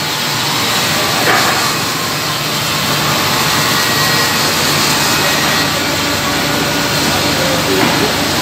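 Woodmaster CNC contour band saw running, a steady machine drone and hiss, with a light knock about a second in.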